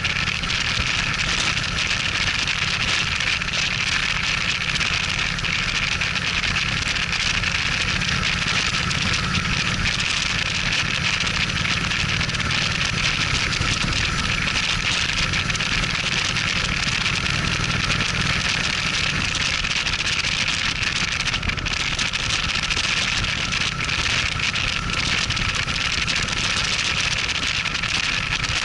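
Cruiser motorcycle riding at a steady cruise: the engine runs evenly under a constant rush of wind and road noise.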